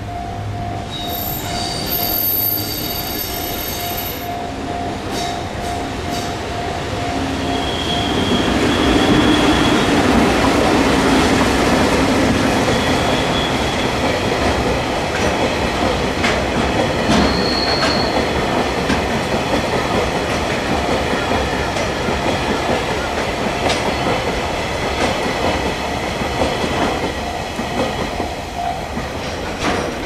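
Japanese level-crossing bell ringing in a steady, fast repeating ding. About 8 seconds in, a freight train of empty Taki 1000 tank wagons rolls through and grows loud, its wheels rumbling and clacking, with several high wheel squeals over the next ten seconds.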